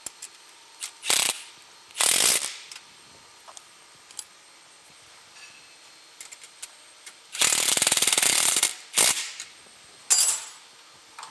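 Cordless impact driver running bolts in, in about five short bursts; the longest, a little past the middle, is over a second of rapid hammering.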